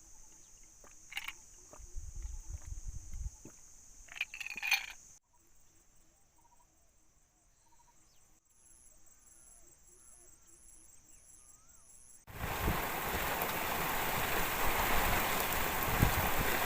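Insects droning steadily with wind buffeting the microphone and a few knocks, then a quieter stretch of faint bird chirps and an insect pulsing about twice a second. About twelve seconds in, heavy rain starts abruptly as a loud steady hiss.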